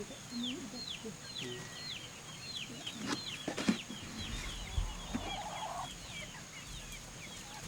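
Chicks peeping continually in a rapid run of short, high, falling cheeps, with a few sharp knocks a little before the middle.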